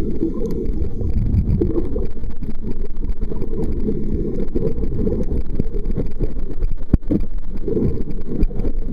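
Muffled underwater rumble of water moving around a submerged waterproof pocket camera, all low and dull with the highs cut off, with one sharp knock about seven seconds in.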